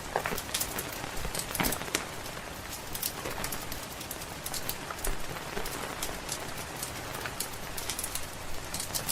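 Steady rain falling, with a wood fire crackling and sending up frequent sharp pops.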